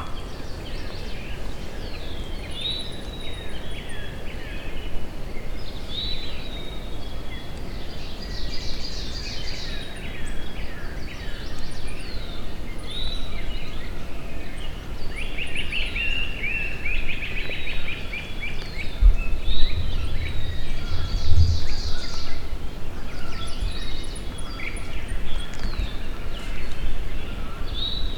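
Several songbirds singing and chirping at once in a spring dawn chorus, with short whistles and rapid trills overlapping throughout. Under them runs a low rumble that swells about twenty seconds in.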